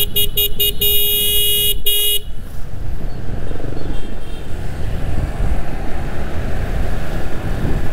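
A vehicle horn beeps in a quick run of short toots, then two longer blasts, and stops about two seconds in. After that, steady wind and traffic rumble on the microphone of a moving motorbike.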